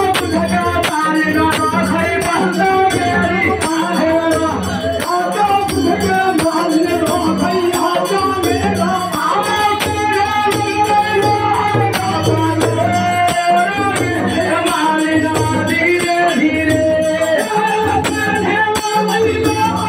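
Devotional folk music: a voice singing over a steady, rhythmic percussion beat.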